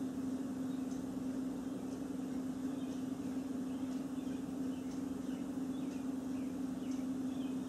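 A steady low hum of room tone, with faint short high chirps or squeaks scattered through from about three seconds in.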